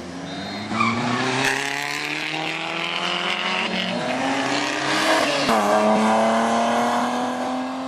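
Rally car engine accelerating hard past, its pitch climbing steadily. About five and a half seconds in there is a quick dip at a gear change, then it climbs again.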